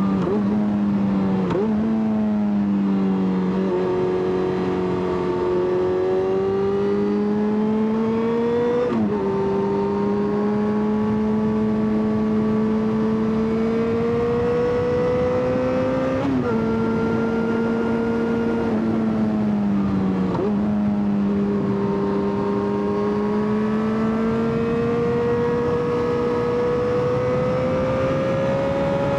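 Yamaha XJ6 inline-four motorcycle engine under way, pulling with its pitch climbing slowly under throttle and dropping sharply several times at gear changes or when the throttle is shut.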